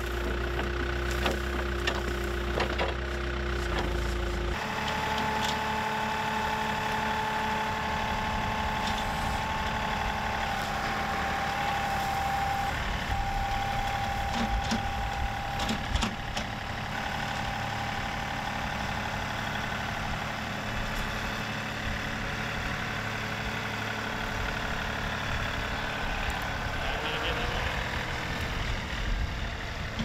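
A Case 580 backhoe's diesel engine running while its bucket tears at a small tree's roots, with sharp cracks of wood. After about four and a half seconds it gives way to a John Deere 2038R compact tractor's three-cylinder diesel running under load as its grapple carries a fallen tree. A steady whine sits over the tractor, there are a few sharp cracks, and the engine note rises near the end.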